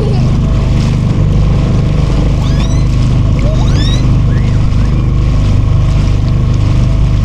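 A hire motorboat's engine running steadily underway, with a constant low drone.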